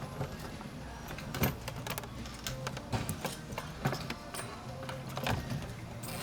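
Background music with scattered sharp clicks and knocks as fuel pump parts and the pickup tube are handled and fitted together.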